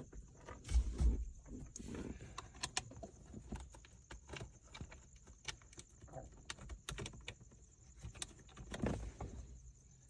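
Hands handling screws and plastic shifter-console trim: scattered light clicks and knocks, with a dull thump about a second in and another near the end.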